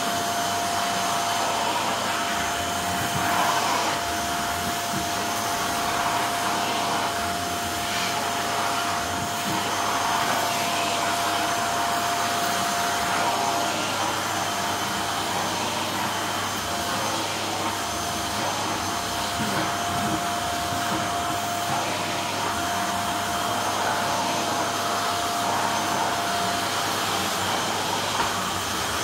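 Canister vacuum cleaner running steadily: an even rushing motor and airflow noise with a steady whining tone in it, which breaks briefly about halfway and drops out near the end.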